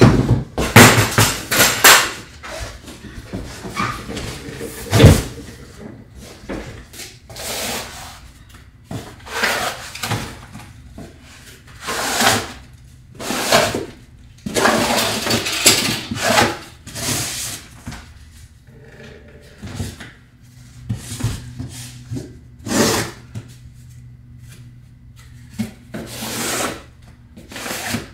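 Cardboard shipping box of a gas water heater being handled: irregular rustling and scraping, about a second at a time with short pauses between.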